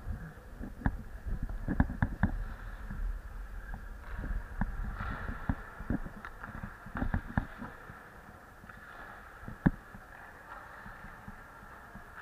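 Ice skate blades scraping and cutting on the ice, with irregular sharp clacks of hockey sticks against the ice and puck. The clacks are frequent in the first two-thirds, then the scraping quietens, with one loud sharp knock about three-quarters of the way through.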